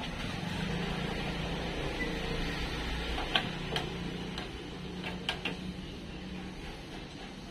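A few sharp metallic clicks, two about three and a half seconds in and two more about five and a half seconds in, as the door-lock rods and clips are fitted inside the bare steel door of a Mitsubishi L300. Under them runs a steady low mechanical hum.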